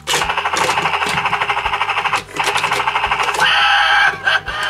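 Talking Dinoco helicopter toy playing its fast rotor-chopping sound effect through its small speaker, with its main rotor turning. After about three seconds the chopping gives way to a higher pitched sound that falls in pitch near the end.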